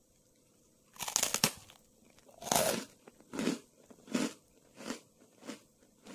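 Crunchy garlic-baguette dalgona (honeycomb sugar candy with toasted garlic bread) snapping with a crackle about a second in, then crunched between the teeth: a louder crunch followed by a run of chewing crunches about one every 0.7 s, growing fainter.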